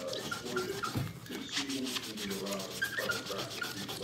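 A cloth scrubbing a gas stovetop around a burner, an irregular scratchy rubbing of many short strokes.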